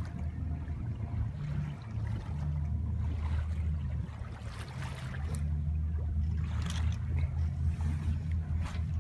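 Small boat under way: its engine runs with a steady low drone, and water splashes against the hull now and then.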